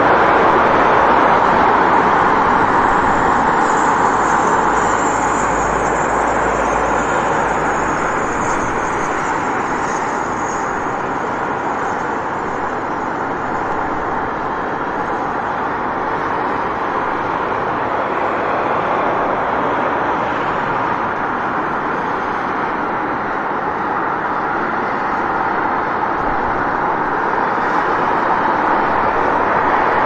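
City street traffic: a steady wash of road and vehicle noise, a little quieter through the middle and louder again near the end.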